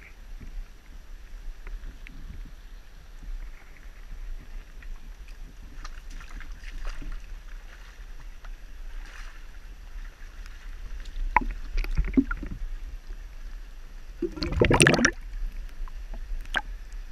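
Water sloshing and splashing around a handheld camera being lowered into a shallow creek, over a low rumble of handling noise. A louder splash near the end as the camera dips into the water.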